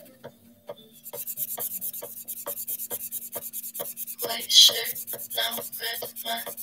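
Black marker scratching across paper in quick repeated strokes, about four or five a second, heavier after about four seconds.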